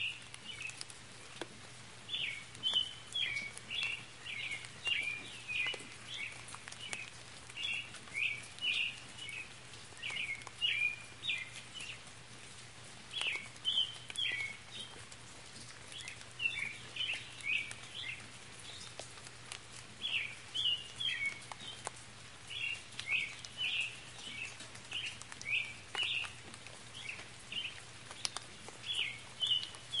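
A bird sings short bursts of high chirps over and over, with a few brief pauses, above a faint patter of light spring rain.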